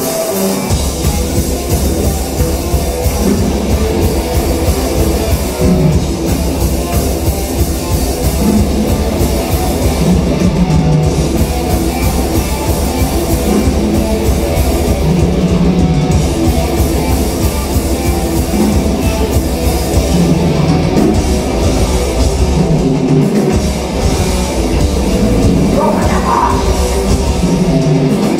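Live heavy metal band playing at full volume: distorted electric guitars, bass and a drum kit. The bass and kick drum drop out briefly late on, then come back in.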